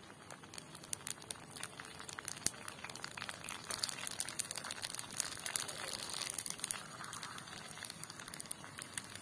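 Phuchka puris deep-frying in hot oil in a kadai: a steady sizzle with many sharp crackles and pops, busiest in the middle, as the puris puff up.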